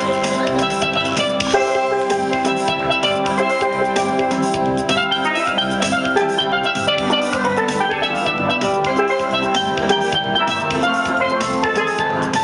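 Steel pans played as a duet, one single lead pan and a pair of lower pans, striking quick melody notes over chords with a steady beat.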